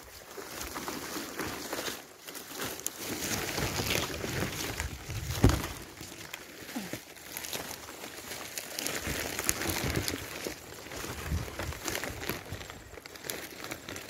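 Irregular rustling and handling noise right at a phone's microphone, with one sharp knock about five and a half seconds in.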